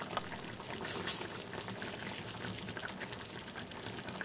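Braising liquid simmering and bubbling steadily around salmon in an open claypot, with a short scrape of a metal spoon against the pot about a second in.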